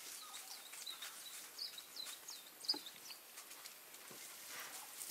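A small bird's series of short, high chirps, each dipping slightly in pitch and repeated every third to half second. A single sharp click comes about two and a half seconds in.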